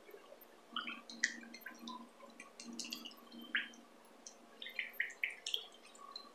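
A hand stirring a runny mixture of blended oranges and olive oil in a bowl, making faint, irregular wet squishing and dripping sounds.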